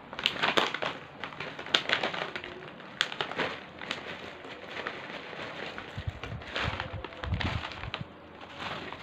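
Clear plastic bag crinkling and rustling as crispy mushroom crackers are shaken out of it onto a plate, with the crisps crackling. Near the end there are a few low thumps.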